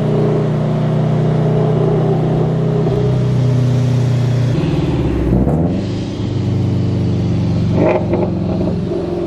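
2017 Mustang GT's 5.0 V8 exhaust under way at a steady rumble, heard from a car alongside. The pitch shifts a few times, with a brief dip and rise about halfway through.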